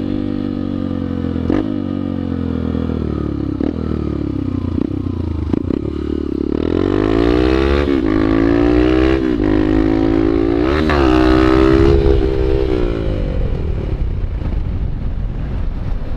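Honda Bros 150 single-cylinder four-stroke motorcycle engine being ridden. Its revs sag for several seconds, then it is revved up hard twice, from about six seconds in and again near eleven seconds, to lift the front wheel for a wheelie. The revs are held high, then the engine drops away into a rushing noise over the last few seconds, with a few sharp clicks along the way.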